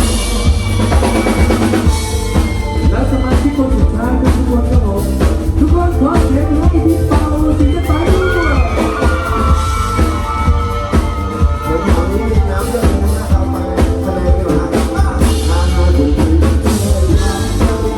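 A live band playing a pop song, led by a drum kit with kick, snare and rimshots over a steady bass line and a pitched melody.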